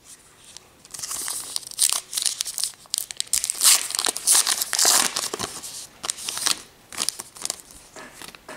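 A baseball-card pack's wrapper being torn open and crinkled by hand: a run of crackling and rustling, loudest in the middle and tapering off near the end.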